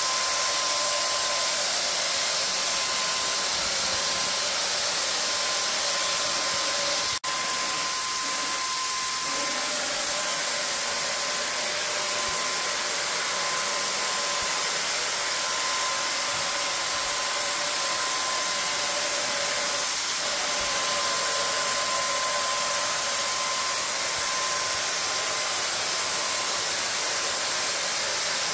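Handheld electric paint sprayer running steadily: an even airy hiss with a steady motor whine. It drops out for an instant about seven seconds in.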